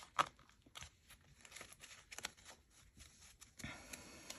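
Frosted plastic A7 cash envelopes being handled and shuffled in the hands: a series of light plastic clicks and taps, one sharper just after the start, with a soft rustle near the end.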